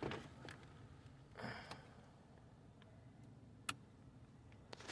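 Near silence with a few faint, scattered clicks and knocks, the sharpest about three and a half seconds in.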